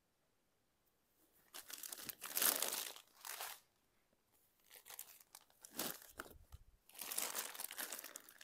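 Rustling and crinkling as sarees are handled and unfolded, in three bouts that start about a second in.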